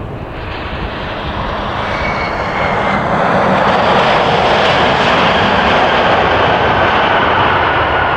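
Jet engines of a Boeing 767-300ER at takeoff power, a heavy roar that grows louder over the first few seconds and then holds steady, with a faint high whine over it.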